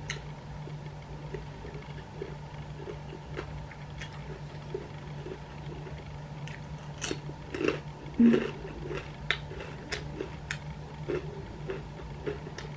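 A person chewing food close to the microphone, with irregular crisp, crunchy clicks and wet mouth sounds, thickest in the second half.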